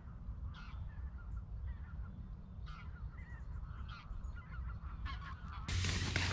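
Faint honking of a flock of geese, many short calls overlapping, over a low wind rumble. Near the end a louder rustle of fabric comes in as a sleeping bag is handled.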